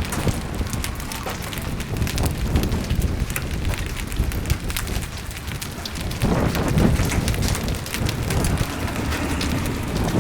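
Hailstorm with heavy rain: a dense patter of sharp ticks from hailstones striking surfaces over a steady rain hiss and a low rumble, which swells about six seconds in.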